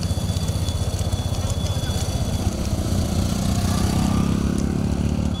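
Motorcycle engine running close by, with a rapid, steady put-put that grows a little stronger about three seconds in.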